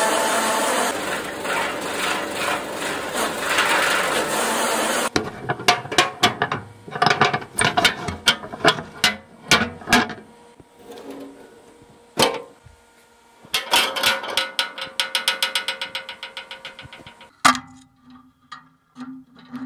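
Electric forage cutter running with a loud grinding racket, the abnormal noise that made the owner stop using it, which cuts off abruptly about five seconds in. Then come scattered mechanical clicks, a fast run of ratchet-like ticks, one sharp knock and a short low hum near the end.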